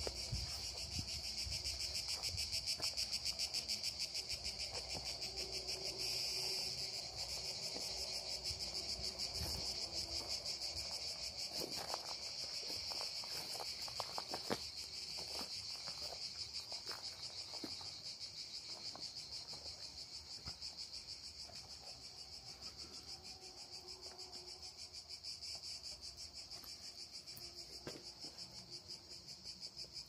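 A dense chorus of chirping insects, a fast, even, high pulsing that grows gradually fainter over the second half, with a few faint clicks around the middle.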